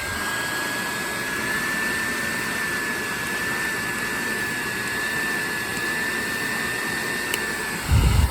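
Old hair dryer running: a steady rush of air with a thin, high-pitched squeal held at one pitch above it, the very squeaky noise of this partially broken dryer. The squeal stops shortly before the end, followed by a brief low thump.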